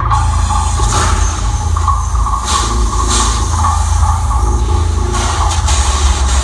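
Rock band playing live at concert volume over a PA, with a heavy bass-and-drum low end and repeated bright crashes over it. It sounds overloaded, as recorded from within the crowd.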